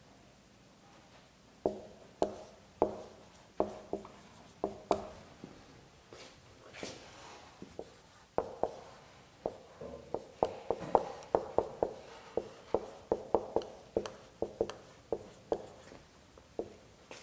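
Marker pen writing on a large white board: quick, irregular taps and short scrapes as letters are drawn. They come in two runs with a pause of a few seconds between them, broken by one longer hissing stroke.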